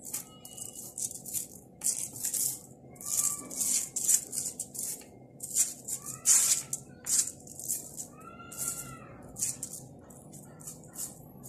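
Crumpled aluminium foil crinkling and rustling in irregular bursts as fingers pick and peel set chocolate chips off it.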